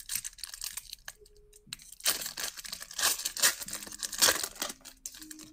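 A shiny foil trading-card pack wrapper being torn open and crinkled by hand, in repeated short crackling rips.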